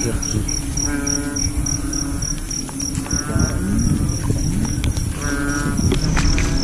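Frogs calling at night: three bleating calls about two seconds apart, over a high, even pulsing call about three times a second and a steady low drone. Low rumbling noise runs underneath.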